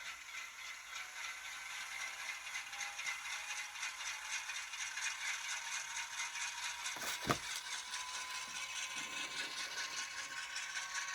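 N scale GE C39-8 model locomotive moving along the track, its onboard sound decoder playing a faint, steady wheel-flange squeal over the light rattle of the running model. A single sharp click about seven seconds in.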